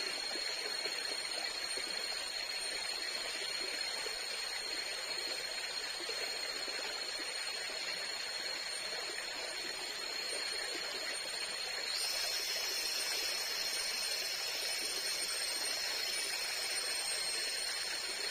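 Steady rush of a nearby forest stream, with insects keeping up thin, high, unbroken tones over it; a second, higher insect tone joins about twelve seconds in.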